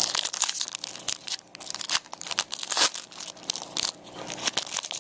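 Foil trading-card pack wrapper being torn open and crinkled by hand: an irregular run of crackles and tearing rustles.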